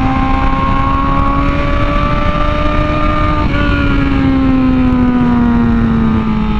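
Superbike inline-four engine pulling under steady throttle while riding, its note rising slowly, with a brief break about halfway, then easing off and falling toward the end. A steady low rush of wind runs beneath it.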